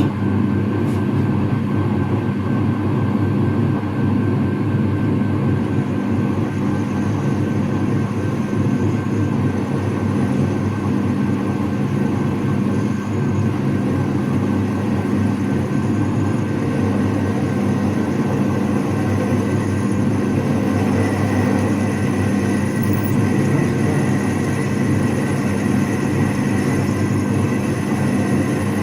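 A motorised machine running steadily and without let-up, a low hum with a faint high whine over it.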